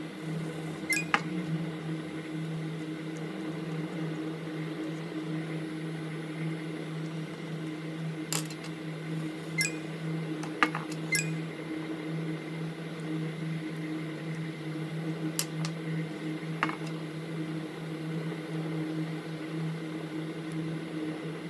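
Steady hum of a small machine, with several short, sharp light clicks scattered through.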